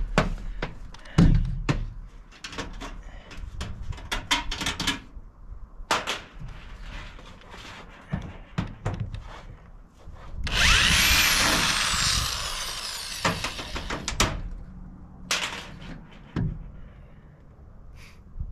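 Cordless drill fastening solar racking rails: short bursts and clicks through the first few seconds, then the drill runs for about three and a half seconds from about ten seconds in, its whine gliding up and down in pitch, and one more short burst about fifteen seconds in.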